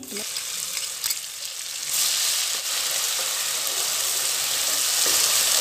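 Onion and green chilli paste sizzling as it goes into hot mustard oil in a kadhai. The sizzle grows louder about two seconds in, then holds steady.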